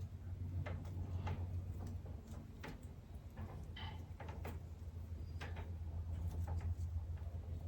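Scattered small clicks and scrapes of bonsai wire being handled and wrapped around a tree's branches, with one short high squeak about four seconds in, over a steady low hum.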